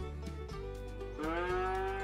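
A cow moos once, a long level call starting a little over a second in, over background music.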